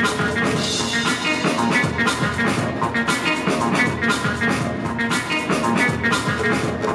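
Loud music with a steady drum beat and guitar.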